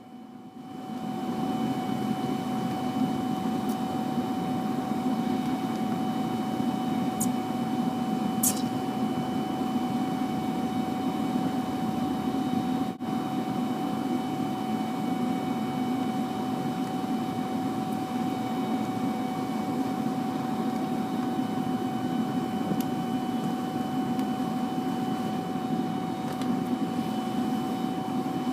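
Forced-air propane furnace burner starting up over about a second and then running steadily: a loud rushing roar with a steady whine from the blower.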